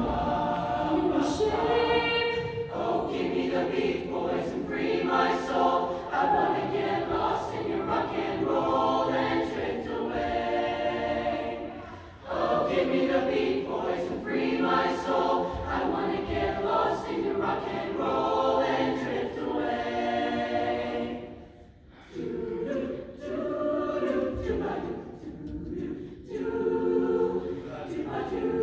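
A mixed-voice high school show choir singing in harmony. The singing breaks off briefly twice, about twelve and twenty-two seconds in, between phrases.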